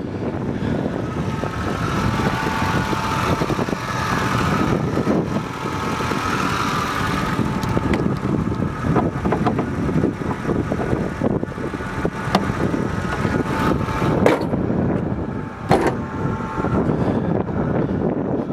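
Ford E350's 5.4-liter V8 idling, with a steady high whine over it for the first several seconds and a couple of sharp clicks late on.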